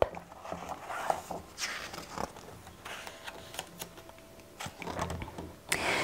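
Paper rustling as a picture book's page is turned and handled, a few soft swishes among faint handling noise.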